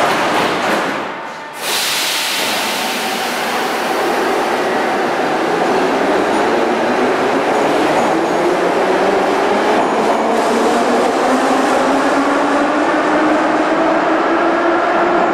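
Metro train pulling out of the station: a sudden loud start about two seconds in, then a steady rumble with a whine that rises slowly in pitch as the train accelerates.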